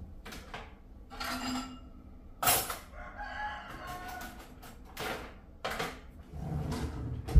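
Metal kitchen utensils and dishes clinking and clattering as they are lifted out of a dish-drying rack, with sharp clinks about two and a half seconds in, about five seconds in, and again near the end. Around three to four seconds in there is a drawn-out wavering tone.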